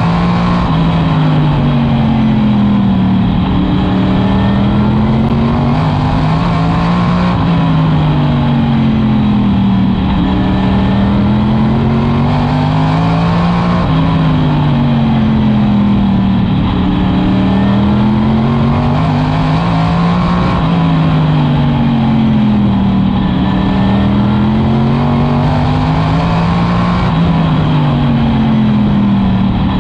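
Modified race car's V8 engine at racing speed, revving up and easing off in a regular cycle about every six to seven seconds, the pitch climbing on each straight and dropping into each turn of the short oval.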